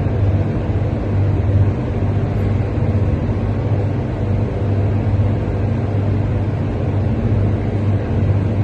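Steady low rumble with no speech, pulsing slightly in level.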